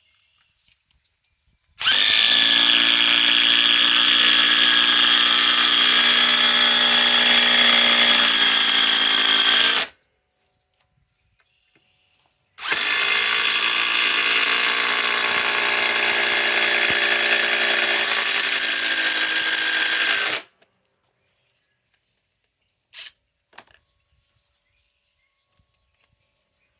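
Cordless impact driver hammering 6-inch TimberLOK screws into wood, in two steady runs of about eight seconds each with a pause of nearly three seconds between them.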